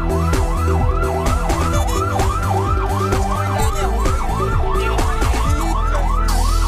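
Fire truck siren in a fast yelp, its pitch sweeping up and down about three times a second, cutting off at the very end.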